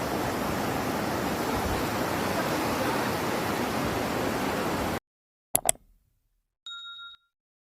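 Steady rush of flowing floodwater that cuts off abruptly about five seconds in. Two sharp clicks and a brief electronic beep follow near the end.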